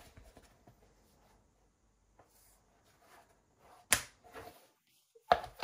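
Handling of a tablet and its keyboard case: faint rustling, then two sharp clicks about four and five seconds in.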